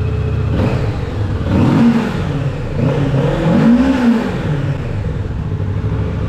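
A motorcycle engine idling, revved twice: the pitch rises and falls back, about two and about four seconds in.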